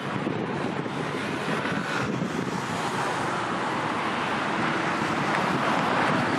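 Steady wind noise buffeting the microphone over the wash of sea waves against shoreline rocks.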